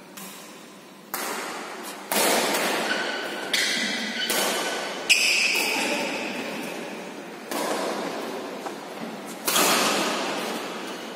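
Badminton rackets striking a shuttlecock in a doubles rally: about seven sharp hits at irregular intervals, each ringing out with a long echo in the large hall.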